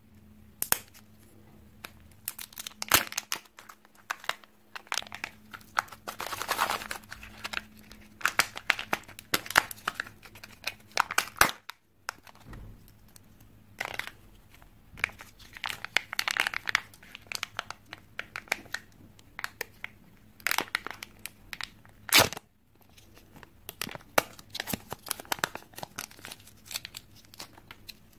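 Kinder Joy egg plastic wrapping being torn and crinkled by hand, with irregular crackling and small plastic clicks as the eggs are unwrapped and opened. Two sharp, loud clicks stand out, about 11 and 22 seconds in.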